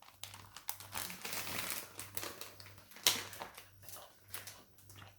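Plastic toy packaging crinkling and rustling with scattered small clicks as a straw is pushed into it, with one sharper click about three seconds in.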